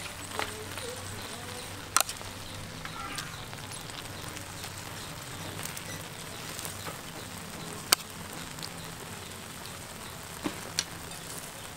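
Charcoal fire crackling under a wire grill rack, with a few sharp clicks, while a metal spoon spreads minced pork over grilled eggplant halves.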